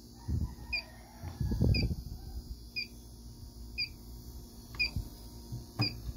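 Electronic refrigerant leak detector ticking with a short, even beep about once a second as its probe is swept over the compressor and tubing; the slow idle rate means no leak is being detected. Rustling from handling the probe, with a couple of sharp clicks near the end.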